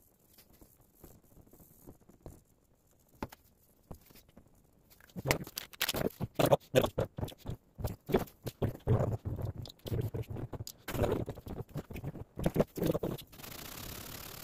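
Irregular knocks and scrapes as a Kawasaki FH721D aluminium cylinder head is handled and set face-down on sandpaper over a flat plate. Near the end a steady rasping begins as the head face is rubbed back and forth on the sandpaper, lapping the warped head flat.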